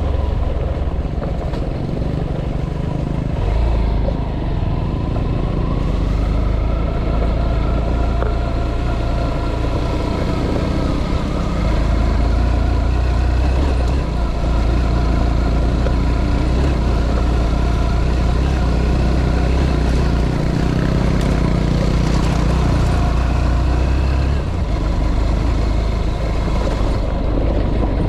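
Motor vehicle running on the road: a steady engine and road rumble whose low end grows and eases a few times, with a faint tone that slowly rises.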